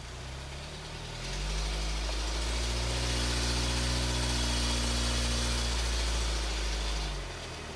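A car's engine and tyre noise, a steady hum that grows louder about a second in, holds, then falls back shortly before the end.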